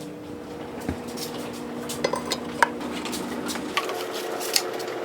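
Light metallic clinks and taps, a few sharp ones about two to three seconds in and one more near the end, over a steady hum.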